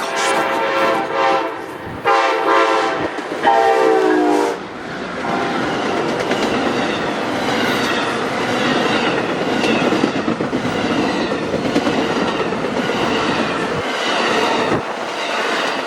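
Amtrak passenger train led by two Siemens ALC-42 Charger locomotives sounding its horn three times as it approaches, the last blast dropping in pitch as the locomotives pass. It is followed by the steady rumble and rhythmic clickety-clack of the passenger cars rolling by.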